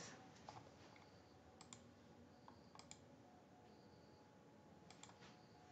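Near silence, broken by a few faint sharp clicks, several coming in quick pairs.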